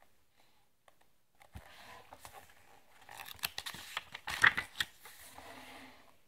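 Pages of a graphic novel being flipped quickly by hand: a run of paper rustles and flicks starting about a second and a half in, loudest around four and a half seconds, then fading.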